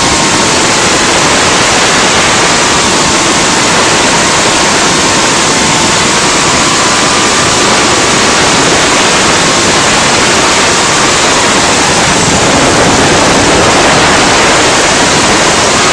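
Cinequeen FPV quadcopter's motors and propellers in flight, heard from the onboard camera: a loud, steady rush of prop wash and air with a thin motor whine that wavers slightly with throttle.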